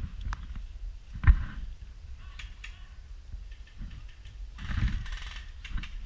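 Airsoft gunfire: scattered sharp shots and a short rattling burst about five seconds in, with a heavy thump a little over a second in, over a low rumble on the microphone.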